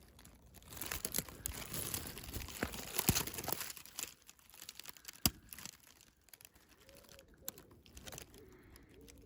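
Rustling and crackling of leaves and twigs being pushed about close to the microphone, with a few sharp clicks. It is loudest in the first few seconds, then dies down.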